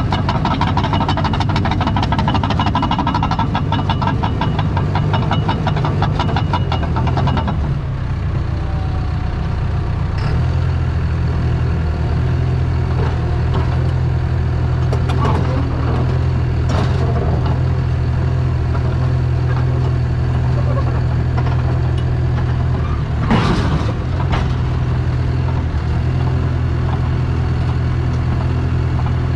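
Caterpillar D3 dozer's diesel engine running, with a rapid clatter over it for the first seven seconds or so, as of the steel tracks moving. After that the engine runs steadily on its own, with one short louder noise about three-quarters of the way through.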